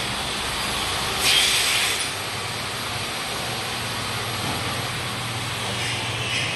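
Biscuit X-fold wrapping machine and its belt conveyor running with a steady mechanical hum, and a short louder hiss about a second in.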